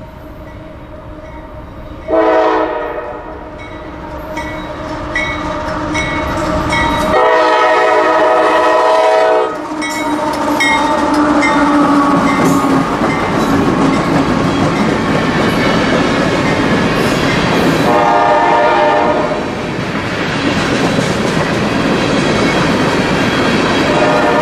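Freight train diesel locomotive sounding repeated long horn blasts as it approaches and passes a grade crossing, while the crossing bell dings steadily through the first half. Then comes the steady rumble and clatter of the locomotive and the empty covered hopper cars rolling past close by.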